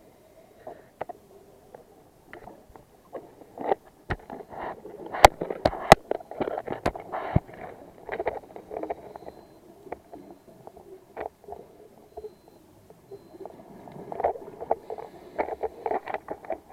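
Underwater recording of a scuba diver's regulator exhaust bubbles, coming in irregular bubbling bursts with a few sharp clicks among them, densest about four to nine seconds in and again near the end.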